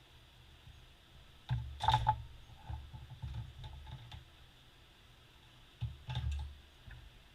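Small parts of a 1985 Honda Rebel 250 carburetor being handled, clicking and knocking against each other and the work surface. There are two bursts, one about a second and a half in and one around six seconds in.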